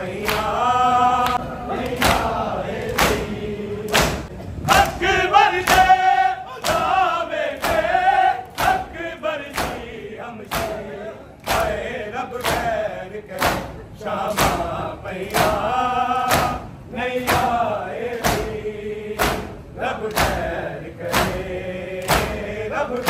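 A crowd of men doing matam, beating their bare chests with open palms in unison in a steady rhythm of slaps, about three every two seconds. Over the slaps a noha is chanted by men's voices, with the crowd joining in.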